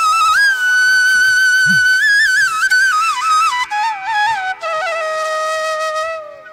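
Background music: a solo flute playing a slow melody, a high note held for over a second, then ornamented slides down to a long low note that fades near the end.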